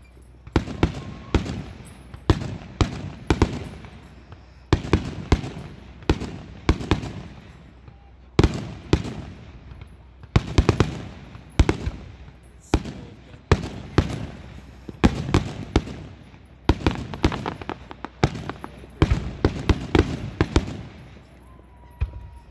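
Aerial fireworks shells bursting in a steady barrage of sharp bangs, often two or three in quick succession, each dying away in a short echo before the next.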